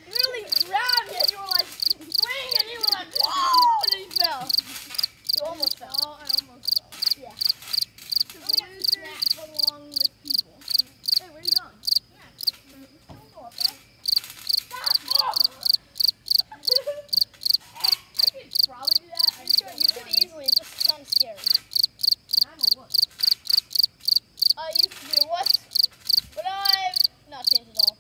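Crickets chirping steadily at about three chirps a second, with a brief pause about halfway through. Fainter sliding, wavering calls sound underneath, mostly at the start and near the end.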